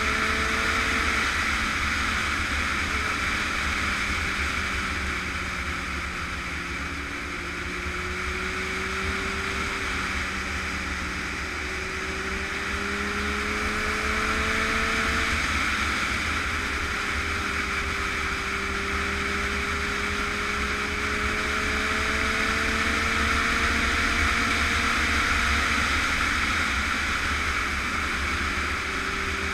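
Motorcycle engine cruising steadily at road speed, its note drifting gently up and down with the throttle, under a constant rush of wind noise on the moving camera.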